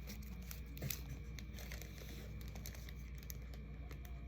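Faint crinkling and small clicks of packaging being handled while goodie bags are filled.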